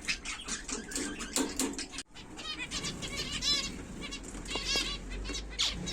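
Zebra finches calling: a run of short chirps and clicks in the first two seconds, then bursts of rapidly repeated short notes.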